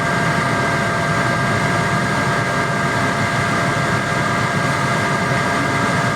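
New heater blower fan motor of a Lada Niva 21214, running steadily at speed with a high whine over a rush of air, having just spun up. It makes no noise but the airflow, and none of the crackle that the old motor made at low speed.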